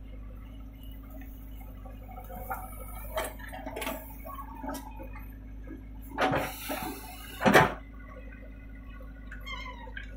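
JCB 3DX backhoe loader's diesel engine running steadily, while soil and clods pour from the backhoe bucket into a steel tractor trolley in two loud rushes between about six and eight seconds in.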